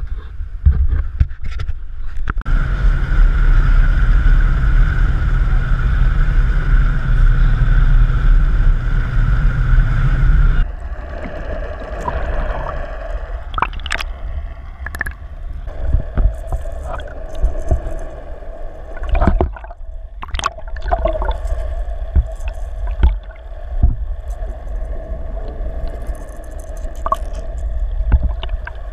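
Water rushing and gurgling around a camera held underwater beside a moving boat, with the boat's engine heard through the water. It is loud with a heavy rumble at first, then changes abruptly about ten seconds in to a quieter, muffled underwater hum with a steady tone, broken by scattered clicks and knocks.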